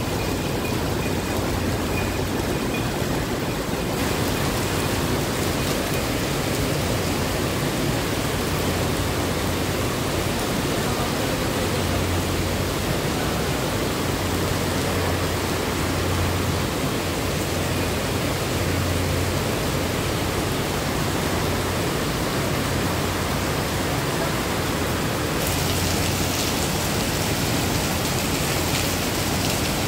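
Heavy tropical rain pouring down, a dense and steady hiss of rain on grass and paving. About 25 seconds in it turns brighter and hissier, with water splashing onto the paving stones.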